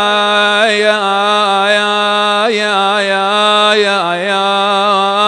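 A man chanting a Shia mourning lament (na'i), drawing out one long held note with a few small ornamental turns in pitch.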